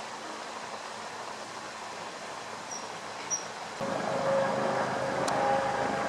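Steady outdoor background hiss with two short high chirps a little before the middle; then, about four seconds in, a louder mechanical drone with steady tones sets in and runs on, with one sharp click just after it starts.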